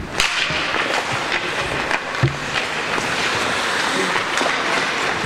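Ice hockey play on a rink: skates scraping the ice and hockey sticks clacking on the puck and ice, with a sharp crack just after the start and a heavier knock about two seconds in.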